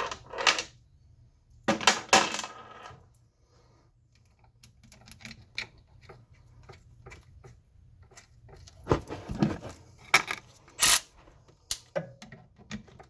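Irregular metallic clinks and knocks of small steel parts and hand tools being handled, with a few louder clusters of clatter: washers, bolt and wrench being fitted on a water pump shaft puller.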